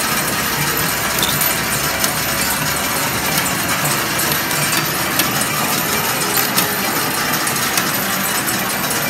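Medals clinking and sliding on the playfield of an Arabian Jewel medal pusher machine, with scattered sharp clicks over a steady, dense background din.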